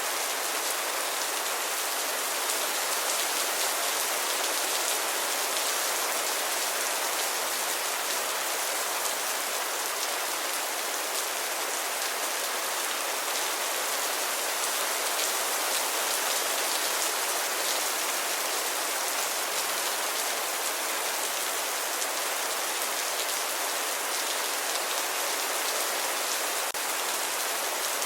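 Steady rainfall, a dense even hiss of raindrops with fine patter on a surface, without change in strength.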